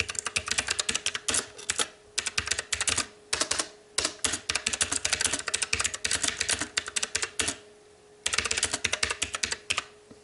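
Fast typing on a STOGA retro-typewriter-style mechanical keyboard with blue clicky switches: rapid runs of sharp key clicks broken by a few short pauses, stopping near the end.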